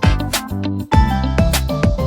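Background music: an upbeat track with plucked guitar-like notes over a steady beat, briefly dropping out just under a second in.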